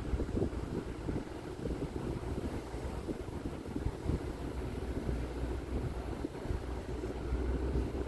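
A vehicle driving slowly along a narrow, winding road, heard as a steady, uneven low rumble of engine and road noise.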